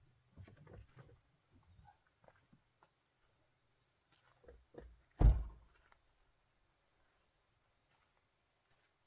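Small knocks and shuffling as someone climbs out of a 2016 Mazda CX-5, then its driver's door shut once with a solid thunk about five seconds in.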